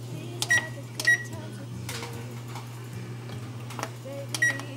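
Whirlpool oven control panel beeping as its buttons are pressed to set a 25-minute timer: three short high beeps, two about half a second apart near the start and one near the end, each after a faint click. A steady low hum runs underneath.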